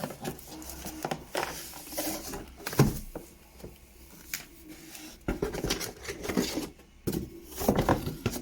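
Cardboard box and packaging being handled and opened: irregular rustling and light knocks of cardboard and plastic, with a sharper knock about three seconds in and busier rustling in the second half.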